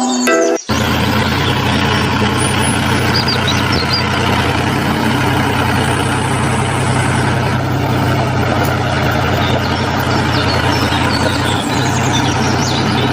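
Engine idling steadily with an even low hum, starting abruptly about half a second in, with a few short high chirps over it.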